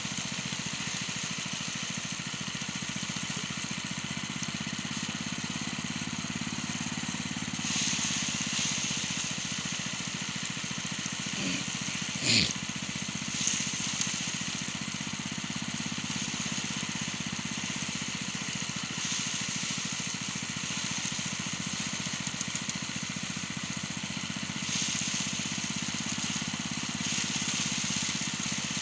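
A small engine running steadily at an even speed, likely driving a rice-harvesting machine. About twelve seconds in there is one short, sharp sound with a quick sweep in pitch.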